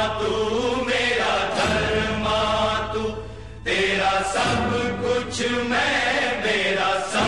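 Music: a chorus of voices singing long held notes over a steady low bass. It drops back briefly about halfway through, then comes in again.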